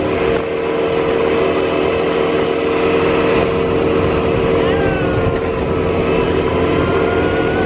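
Quad bike engine running at a steady speed while riding along a road, with wind rushing over the microphone.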